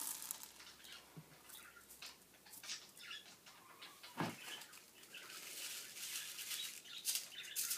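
Small beads dropped by hand onto a glue-covered wooden flower cutout, landing and scattering with a patter of light clicks and ticks, and one duller knock about four seconds in.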